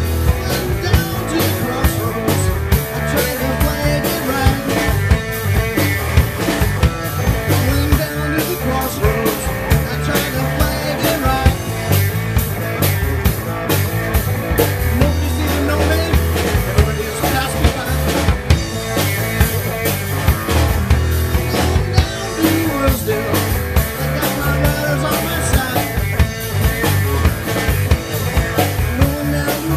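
Live rock band playing: a Ludwig drum kit keeping a steady beat under amplified electric guitar, heard through the PA.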